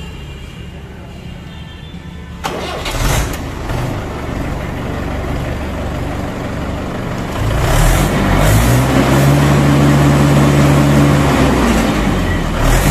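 Mahindra 415 DI XP Plus tractor's 42 hp four-cylinder water-cooled Simpson diesel engine starting about two and a half seconds in and idling. From about seven seconds in it is revved up and held at high speed, eases off, then revs up again near the end.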